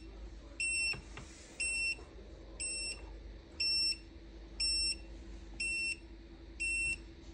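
Growatt 5000ES inverter's alarm buzzer beeping, short high beeps about once a second. The beeps signal fault code 20: lost BMS communication with the lithium battery.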